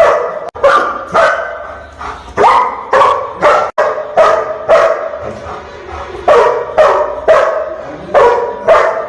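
German shepherd barking repeatedly, about two barks a second, with a short pause around the middle.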